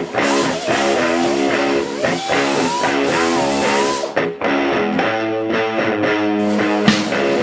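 Rock music led by a guitar, its lead notes bending up and down over a steady chordal backing.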